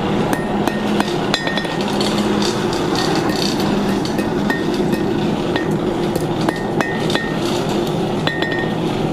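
Blacksmith's hand hammer tapping twisted mild-steel fork tines on an anvil: about a dozen light, irregularly spaced taps, several with a brief high ring, shaping the tines so they run parallel. A steady low hum runs underneath.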